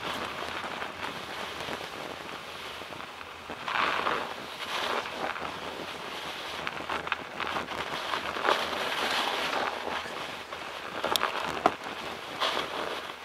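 Bicycle tyres crunching and crackling over snow while riding, with wind rushing on the microphone; a few sharper crackles and one sharp click come near the end.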